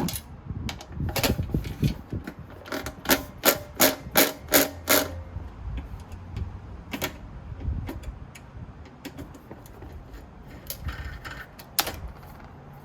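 Sharp clicks and taps of metal and plastic parts being handled while a NAS's controller board is taken out, including a quick run of about seven clicks a few seconds in and scattered single clicks after.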